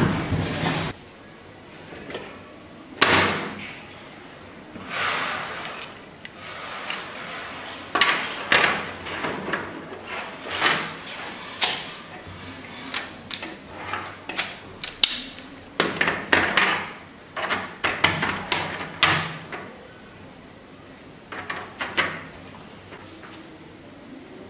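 3D-printed plastic model train track pieces being handled and snapped together on a wooden table: irregular clicks, taps and short scrapes of hard plastic, with short pauses between them.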